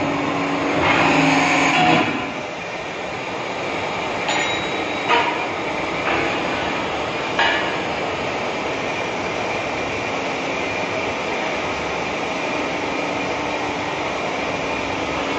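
150-ton deep-draw hydraulic press's power pack running, its electric motor and pump giving a steady hum. The pump noise swells louder for about a second near the start. A few short, sharp metallic knocks come between about four and seven and a half seconds in.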